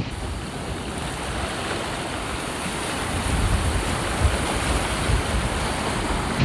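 Ocean surf churning and breaking against rocks, a steady wash of water noise, with wind rumbling on the microphone.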